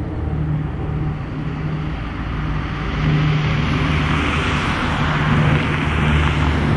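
Lockheed C-130 Hercules's four turboprop engines running as it passes low overhead on approach with its landing gear down. A steady low propeller hum with a rushing hiss swells louder about three seconds in.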